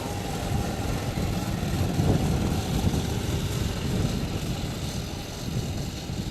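Arctic Cat 120 youth snowmobile engine running steadily.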